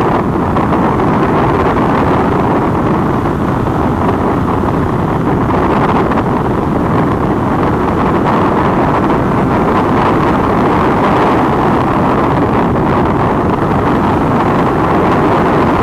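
Steady wind rush over the microphone of a Triumph Daytona 675 sport bike at high speed, about 200 km/h, with the bike's inline three-cylinder engine running under it at steady revs.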